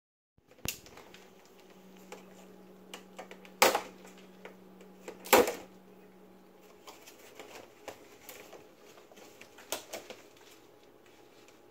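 Scattered light taps and knocks, two louder ones a couple of seconds apart, over a faint steady hum.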